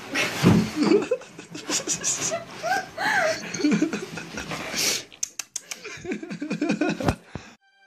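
People laughing hard, in breathy bursts with a few rising and falling squeals. About five seconds in comes a run of sharp knocks and thumps, which fit the cardboard box bumping along the wooden floor with the cat inside.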